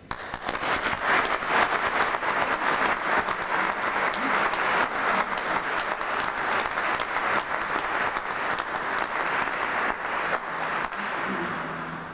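Audience applauding after a song ends, starting suddenly, then dying away over the last couple of seconds.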